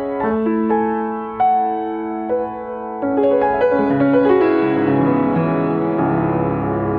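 Yamaha upright piano played solo, improvising a slow melody of single sustained notes that grows denser, with low chords ringing under it, from about three seconds in.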